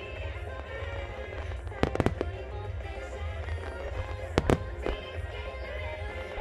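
Aerial firework shells bursting with sharp bangs, two close pairs about two seconds in and about four and a half seconds in, over continuous music and a low rumble.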